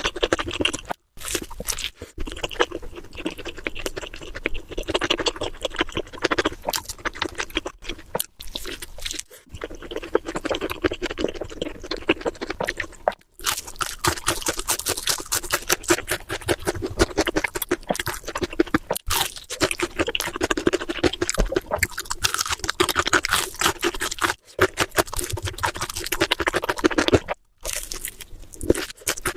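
A person chewing and crunching fast food close to the microphone: dense, rapid crackling bites and chews, broken several times by short dead-silent breaks.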